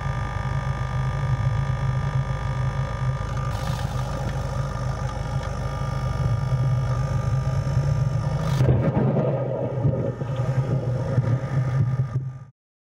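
Vehicle engine running steadily, with a sharp click about two-thirds of the way in, after which the hum turns rougher.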